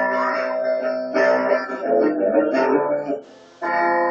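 Electric guitar strumming chords, with a man singing along into a microphone. The playing breaks off for a moment just after three seconds in, then starts again.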